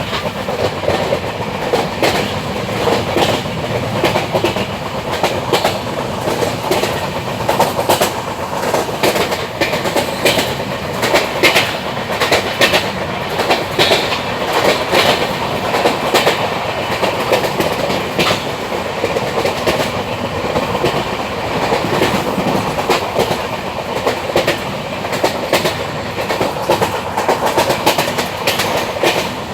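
Train wheels running over the rails: a steady rolling rumble with many irregular sharp clicks and clacks from the wheels on the track.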